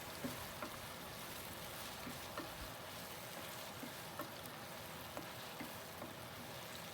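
Diced onions and bay leaves sizzling in hot oil in a frying pan: a steady, faint hiss with a few light clicks scattered through it.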